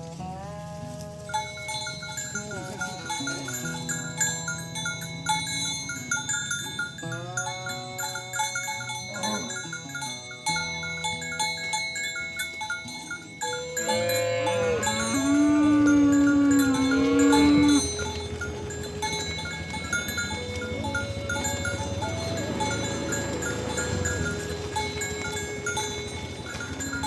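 Cattle mooing, with one long, loud moo about halfway through, over a steady background of other held pitched tones.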